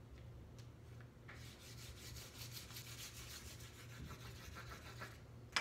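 A hand rubbing quickly back and forth over a sheet of paper laid on an inked woodcut block, pressing the paper onto the ink to take the print. It makes a papery swishing of rapid strokes that starts about a second in. Near the end comes a single sharp click.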